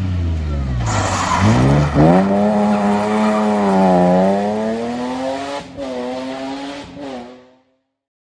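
BMW M3 E36 rally car's straight-six engine revving hard as it goes through the junction. The pitch drops about a second and a half in, then climbs steeply as the car accelerates away, with a brief dip near six seconds like a gear change. The sound cuts off shortly before the end.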